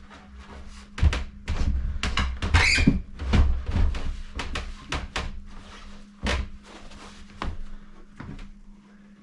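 Unfinished plywood cabinet being shoved into place under a countertop: a string of wooden knocks and thumps, with a short scrape just under three seconds in, as the cabinet catches on something.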